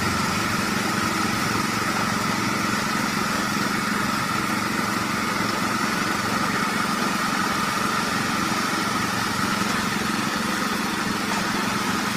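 A small motor or engine running steadily, a constant drone with a high whine that holds one pitch throughout.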